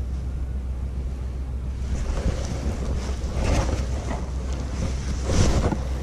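Steady wind buffeting on the microphone, with louder rustling of a nylon rain jacket and fishing gear being handled close to the mic twice: once about three and a half seconds in and more strongly near the end.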